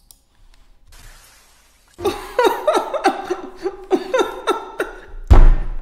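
A man laughing heartily: a quick run of 'ha' syllables, each falling in pitch, starting about two seconds in. A loud low thump comes near the end.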